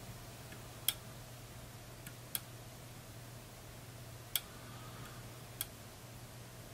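Four light, sharp clicks a second or two apart as a glue bottle's brush applicator is worked against the fly's hook and head in a tying vise, over a faint steady low hum.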